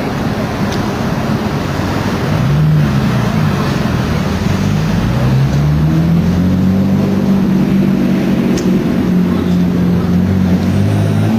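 Street traffic noise with a vehicle's engine running close by, its low hum wavering slightly up and down in pitch and growing stronger a few seconds in.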